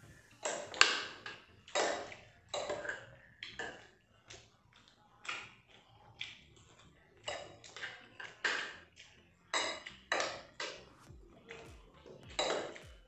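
Eating sounds: a man chewing and a spoon clinking and scraping on a ceramic plate, in short irregular bursts about once a second.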